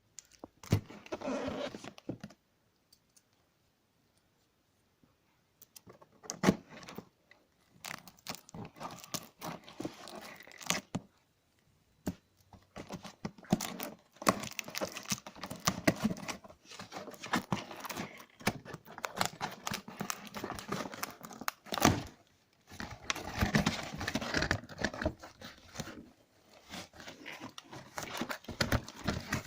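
Poster packaging being opened and handled: irregular tearing, crinkling and rustling of paper or plastic, with many small clicks and knocks. The handling comes in bursts, with brief quiet pauses.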